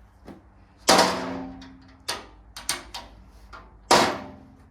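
Metal cover on a mini skid steer being shut: a loud metallic bang with ringing about a second in, a few lighter clanks, then a second loud bang near the end.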